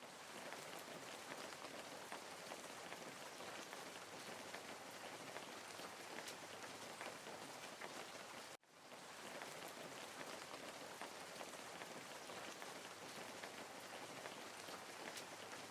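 Steady rain with fine pattering drops, in a looped background track: it cuts out for a moment a little past halfway and starts again.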